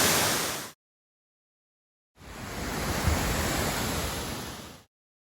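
Steady rush of a waterfall, fading out under a second in; after a gap of silence, a second, somewhat quieter stretch of rushing water fades in and then fades out again.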